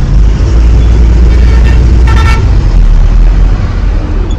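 Truck's diesel engine running, heard from inside the cab as the truck creeps forward a short way, with a short horn toot about two seconds in.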